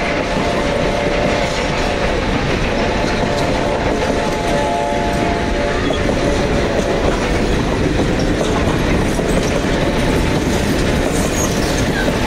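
Passenger coaches of an excursion train rolling past close by: a steady rumble with the clickety-clack of wheels over rail joints. A steady chord-like tone sounds through the first half and fades out about seven seconds in.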